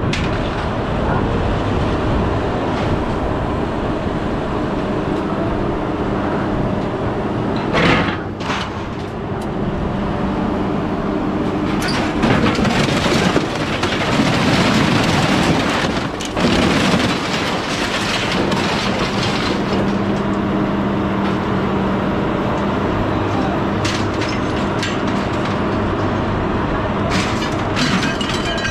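Hydraulic grapple loader working a scrap-metal pile: its engine and hydraulic pump run steadily throughout. Scrap metal clanks about eight seconds in, crunches and scrapes for several seconds in the middle as the grapple closes on the pile, and clinks a few more times near the end.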